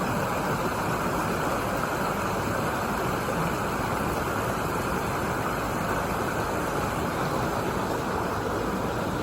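Stream running: a steady rush of flowing water.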